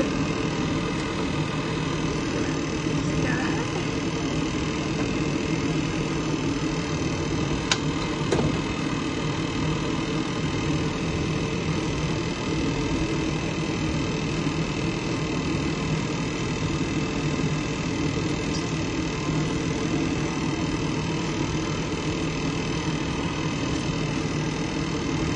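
Beef frying in a pan on a gas stove, a steady sizzling hiss over a constant low mechanical hum, with a couple of light clicks about eight seconds in.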